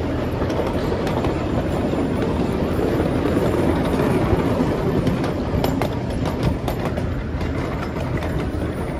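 A train rolling steadily along its track, a continuous rumble with a few light clicks about six seconds in.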